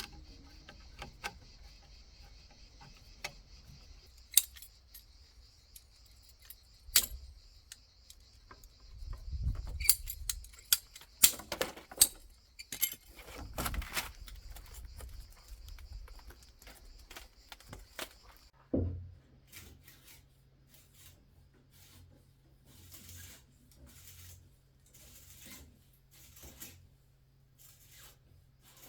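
Scattered sharp clicks, clinks and knocks of small hard objects being handled, over a steady high hiss that stops abruptly about two-thirds of the way in. After that a low steady hum, with softer rustles and taps.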